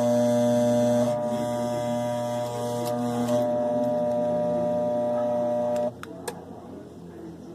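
Electric gate opener motor humming steadily without turning for about six seconds, then cutting off suddenly, with a click just after. It is the stalled hum of a single-phase motor whose capacitor has failed.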